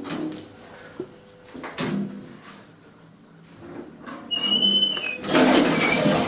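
Old lift modernised by Kone: scattered clicks and a low hum, then a short high beep about four seconds in, followed by the loud noise of the sliding lift doors moving.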